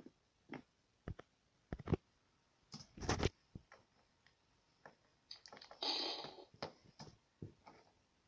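Small plastic toy figures being handled and set down on a tabletop: a series of short clicks and knocks, the loudest about three seconds in, with a brief rush of noise near six seconds.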